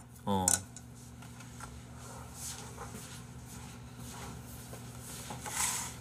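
Quiet room tone with a faint steady hum. A short vocal sound comes just after the start, and a soft rustle comes near the end.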